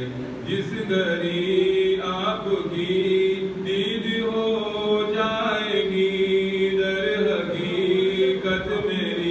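A man's solo voice chanting a munajat qasida, a devotional supplication poem, in long drawn-out melodic phrases with slowly sliding held notes.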